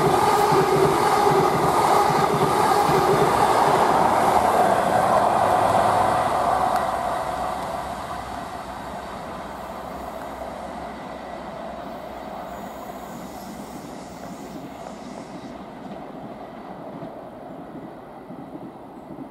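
An LNER High Speed Train passes close at speed, a loud rumble of wheels on rail with a steady whine over it. About six seconds in it fades to a quieter, steady rumble of a train further off.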